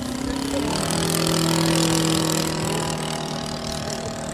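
O.S. FT-160 four-stroke boxer-twin glow engine of a giant-scale Klemm L-25 D RC model plane in flight. It passes overhead: the engine note drops in pitch about half a second in, is loudest for the next two seconds, then eases as the plane flies away.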